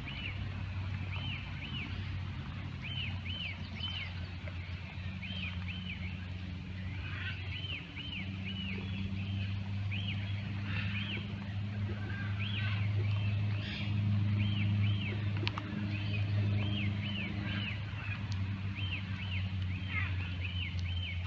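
A songbird singing short arched notes in quick groups of two to four, repeated again and again, over a steady low hum that grows louder midway.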